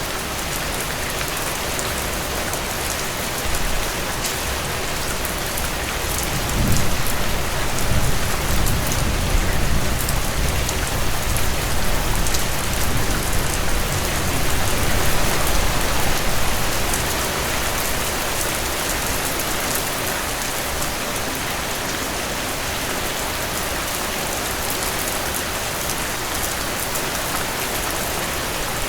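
Heavy rain falling in a steady, dense hiss. A low rumble swells under it for about ten seconds, starting about a quarter of the way in.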